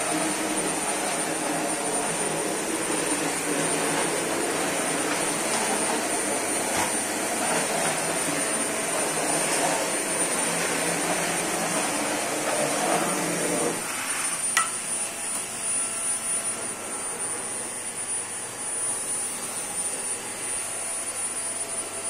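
Samsung SC52U6 700-watt bagless cyclone canister vacuum cleaner running at full power: a steady high motor whine over rushing air as the nozzle works over floor tiles and a chenille bath mat. About two-thirds of the way through, the rushing drops noticeably while the whine holds.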